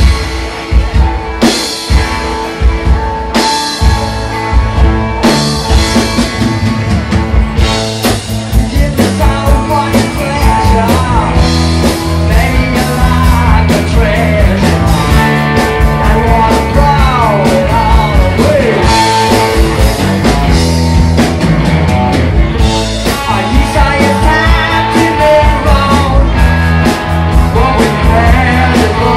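Psychedelic rock band playing live: electric guitars, bass and drums with a steady beat, and a man's lead vocal coming in about ten seconds in.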